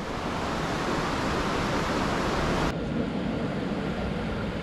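Steady rushing of wind over the microphone of a camera riding on a bicycle, mixed with tyre and road noise. About two and a half seconds in, the sound cuts abruptly to a duller, lower rush.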